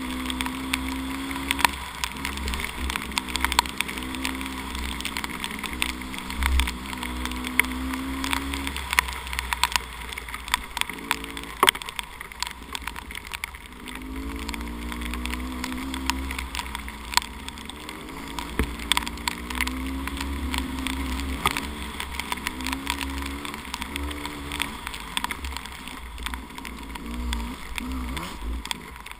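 300cc two-stroke dirt bike engine under way, its pitch rising and falling again and again as the throttle is worked. Many sharp ticks and knocks sit over it, with a steady low rumble beneath.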